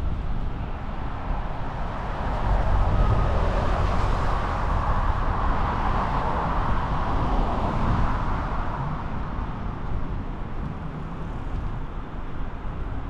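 Wind rumbling on a helmet-mounted action camera's microphone as a bicycle rolls along a paved path. A broad rushing noise swells from a couple of seconds in and fades again a few seconds later.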